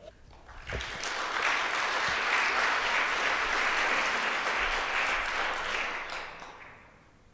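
Audience applauding. The applause builds up within the first second, holds steady, and dies away near the end.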